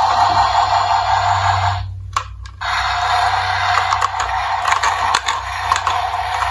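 Die-cast toy cars rolling down a hard slope: a steady rattling roll that breaks off about two seconds in, then scattered sharp clicks of the cars knocking together, with music underneath.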